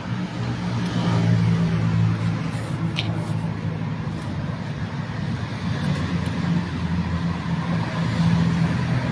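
Road traffic: a motor vehicle engine running close by, a low steady hum that swells about a second in and again near the end.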